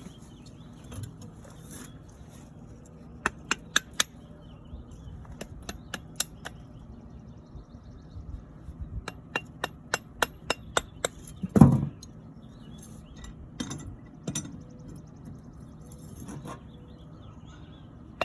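Sharp metallic taps and clinks of a hand tool striking metal, in scattered groups with a quick run of about a dozen strikes in the middle, then one heavy thump and a few softer knocks: a sand-casting mould being worked open.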